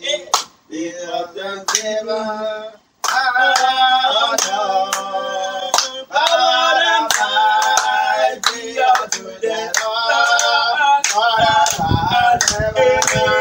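Voices singing a church praise chorus to steady hand clapping, about two claps a second; low thuds join in near the end.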